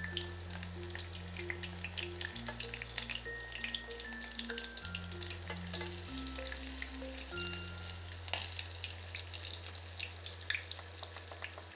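Hot oil sizzling and crackling steadily around a breadcrumb-coated roll as it deep-fries in a small saucepan, with many fine pops. Background music with slow sustained notes plays under it.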